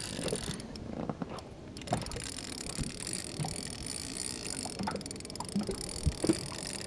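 Open-water boat ambience on a small inflatable boat: a steady low wash of water and wind, with a few light knocks scattered through it.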